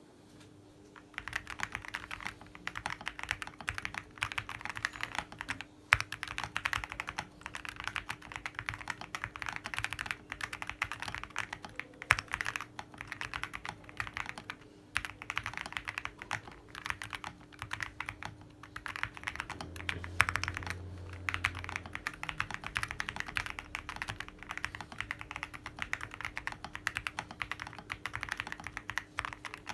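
Continuous fast typing on a Star75 mechanical keyboard with Kailh Box Mint switches, MT3 keycaps and EG v2 stabilisers. The typing starts about a second in and has an occasional louder clack among the keystrokes.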